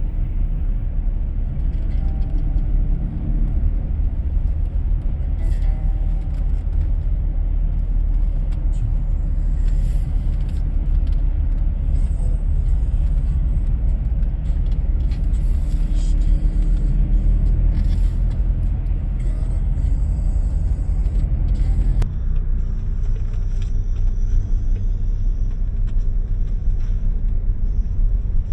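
Car being driven: a steady low rumble of engine and tyre noise on the road.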